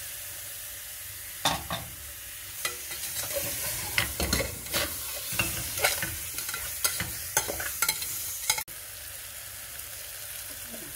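Chicken pieces sizzling in hot oil and ground masala in a pressure cooker, while a steel slotted spoon scrapes and clinks against the pot as they are stirred from about a second and a half in. Near the end the stirring stops sharply and only a steady sizzle is left.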